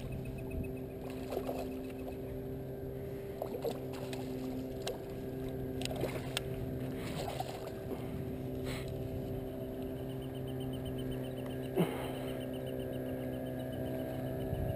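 A steady low engine hum holding several pitches at once, with scattered light clicks and taps over it.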